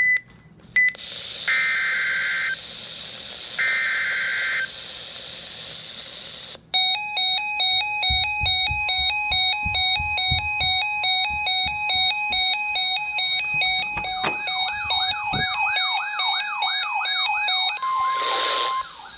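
Emergency Alert System warning received on a weather radio. Static hiss carries two short bursts of paired warbling data tones (the SAME alert header), then a loud repeating electronic alert sound of stepped beeping tones, joined by a fast warbling tone partway through. It ends in a brief steady tone.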